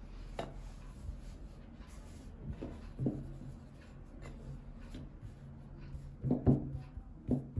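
Hands laying a thin rolled-out sheet of yeast dough onto a floured ceramic plate and pressing it flat, a soft rubbing and patting with a few light taps, more of them near the end.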